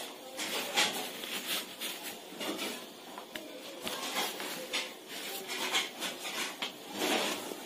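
Cloth rustling in irregular bursts as clothes are handled and pressed into a parachute-fabric storage bag.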